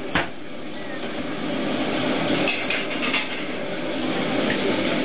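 Lamian noodle dough slapped hard on the work counter once just after the start as it is stretched by hand, over a steady kitchen din.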